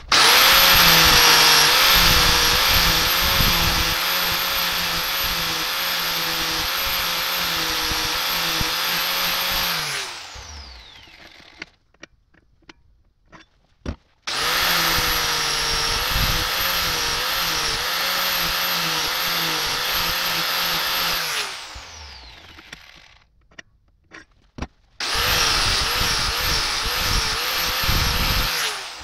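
Angle grinder with an abrasive disc grinding steel. It runs in three bursts of about ten, seven and four seconds, its whine wavering under load, and each burst winds down with a falling whine. A few short knocks come in the pauses.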